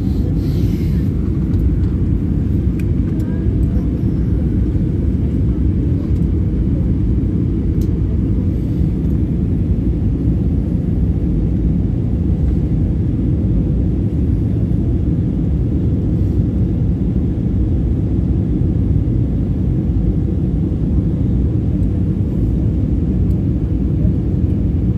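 Steady low rumble of jet airliner cabin noise, engine and airflow, heard inside the passenger cabin during the descent for landing.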